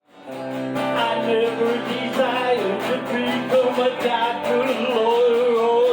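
Live country music: an acoustic guitar strumming a steady rhythm with a wavering lead melody over it, fading in at the start.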